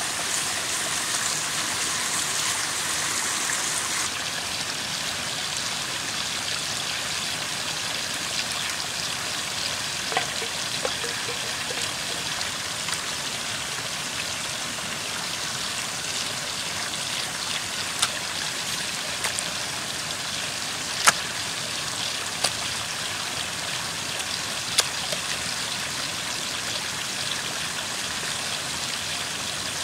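Small forest stream with a little cascade running steadily. A few short, sharp clicks from handling food in a metal pan sound over it now and then.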